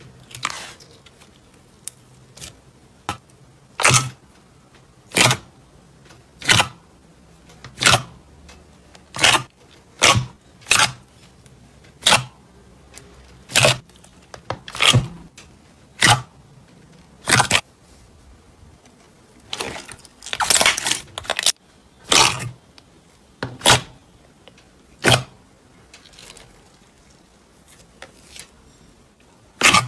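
Clear green slime being pressed and stretched by hand, giving short wet pops and clicks about once every second or so, with a longer crackly run a little past the middle.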